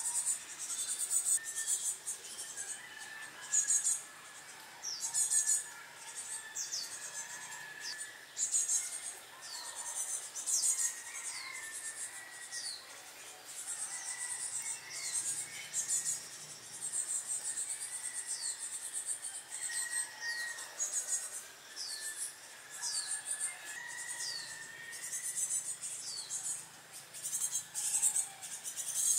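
Outdoor nature ambience: insects buzzing in high-pitched pulsing bursts, with birds giving a short falling call every second or two.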